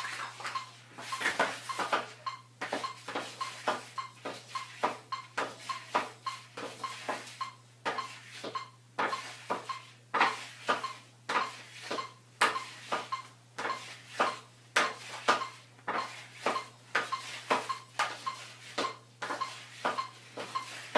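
Hockey stickhandling on a hard floor: the stick blade knocks the puck side to side in quick, rhythmic clacks.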